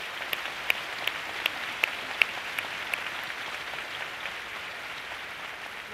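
Audience applauding, with single sharp claps standing out about three times a second for the first three seconds; the applause thins out toward the end.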